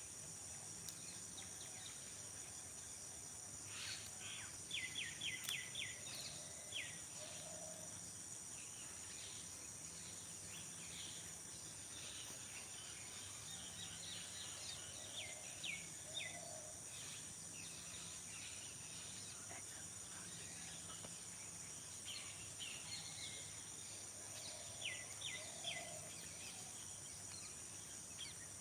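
Faint early-morning field ambience: a steady high trilling of crickets and other insects throughout, with birds breaking in with bursts of quick repeated chirps about five seconds in, midway, and again near the end.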